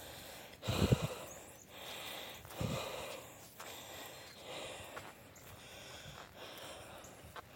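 Walking on a grassy, muddy trail: footsteps swishing through dry grass about once a second, with breathing close to the microphone. Two low thumps come in the first three seconds.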